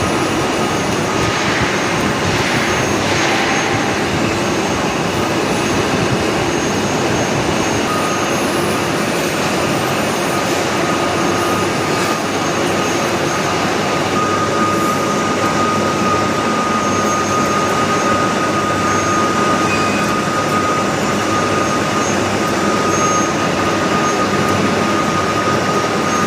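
Metalworking lathe running steadily, a dense even machine noise; a thin steady whine joins about eight seconds in and grows stronger partway through.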